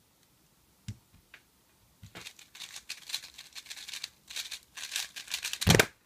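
Rapid plastic clicking and clattering of a 3x3 speedcube being turned at full speed, a run of almost four seconds that is the 3.82-second solve, ending in a deep thump as the hands slap down on the timer.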